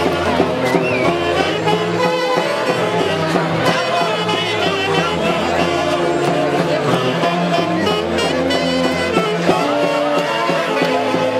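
A live Andean huayno orchestra playing steadily: held melody notes from the wind instruments over a continuous bass beat.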